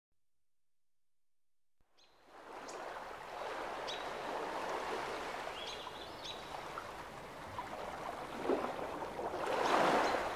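Ocean surf washing in, fading up after about two seconds of silence, with a few short high bird chirps over it; a wave swells louder near the end.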